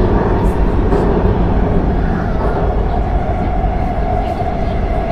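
Wuhan Metro Line 6 train heard from inside the car while running between stations: a steady rumble of wheels on rail. A whining tone shifts higher about halfway through.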